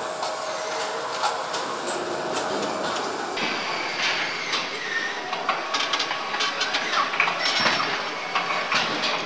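Car assembly-line factory noise: a steady mechanical hum with scattered metallic clicks, knocks and clinks of tools and parts being handled.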